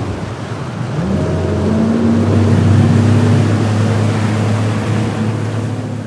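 Bass boat's outboard motor rising in pitch about a second in as it is throttled up, then running steady at speed, over a rush of wind and water.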